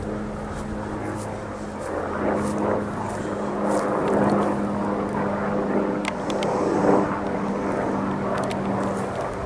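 MD Helicopters MD 369E light turbine helicopter flying past: a steady drone of rotors and engine with a held hum, growing louder over the first few seconds and staying loud.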